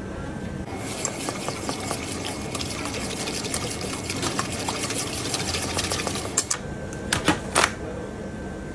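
A wire whisk beats a thin spice marinade in a stainless steel bowl, a fast, even scraping clatter that lasts about five seconds. Near the end come a few sharp metallic clinks.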